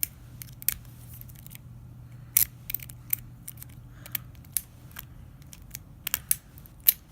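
Scattered sharp metallic clicks and scrapes of a steel hook pick working inside the keyway of a Master Lock 140 padlock to bypass its shackle latch, over a faint steady low hum.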